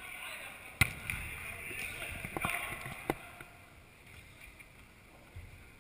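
Players shouting to each other in a large echoing sports hall, with a few sharp strikes of the football, the loudest about a second in and two more a couple of seconds later; it goes quieter for the last couple of seconds.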